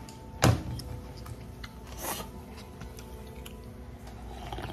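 Eating at a table: a sharp clack of tableware about half a second in, then softer sipping and drinking from a bowl held to the mouth near the end.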